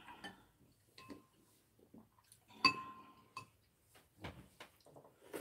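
Metal spoons clinking against porridge bowls: several light clinks, the loudest one ringing a little under three seconds in.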